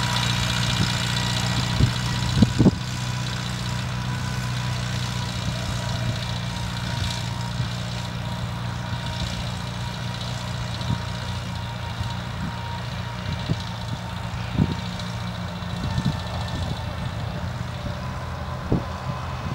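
Farmall Cub tractor's four-cylinder engine running steadily under load while pulling a plow, slowly growing quieter as it moves away. A few short sharp clicks stand out about two seconds in and again near the end.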